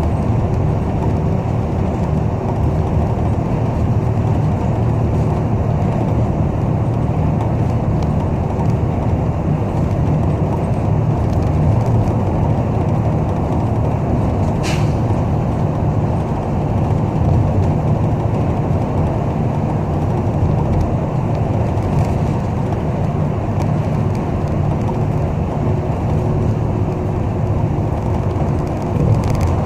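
Steady engine and road rumble heard inside a moving city bus, with one short sharp sound about fifteen seconds in.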